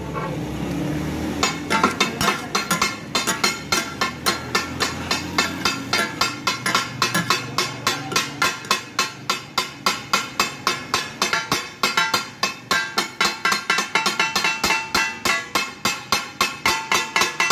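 Two flat steel spatulas rhythmically chopping mutton offal on a large round steel griddle, the takatak clatter of metal on metal. It starts about a second and a half in at roughly four strikes a second and quickens later on.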